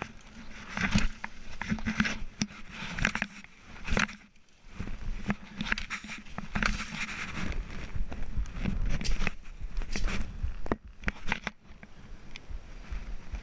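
Machete hacking through ferns and brush: irregular swishes and chops with leaves and stems rustling and snapping, with a short pause about four seconds in.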